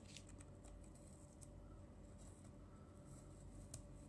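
Masking tape being peeled off a painted plastic RC truck body, heard very faintly as a few scattered soft clicks and crackles.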